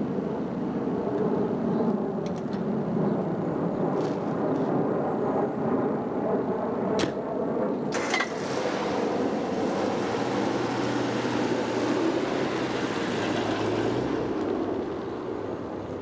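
Street noise: a steady low rumble with two sharp clicks about halfway through, then a passing vehicle whose hiss swells and fades again near the end.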